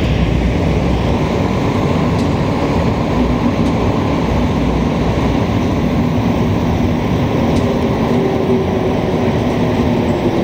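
Steady rumble and rush of a rubber-tyred MPM-10 Azur metro train running through the tunnel and into a station, heard from inside the car; a low humming tone comes in about eight seconds in.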